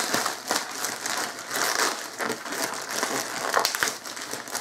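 Packaging rustling and crinkling as an opened parcel box and its contents are handled, with scattered light clicks and knocks, a few sharper ones near the end.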